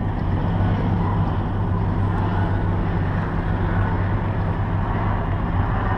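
A motor vehicle engine idling, a steady low hum that holds even throughout.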